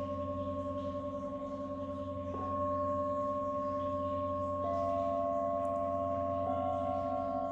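Tibetan singing bowls struck one after another with a mallet: three strikes about two seconds apart, each adding a new ringing tone over the long, pulsing hum of the bowls still sounding.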